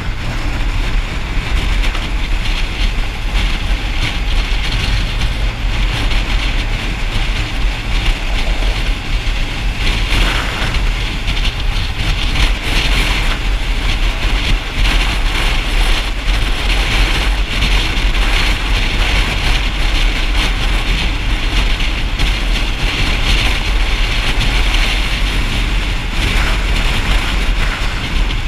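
Motorcycle being ridden: steady engine rumble mixed with wind and road noise, heard from the bike's onboard camera.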